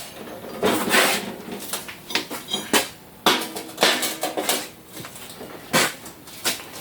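Metal parts being handled: a string of irregular metallic clanks and knocks, about ten in all, some ringing briefly.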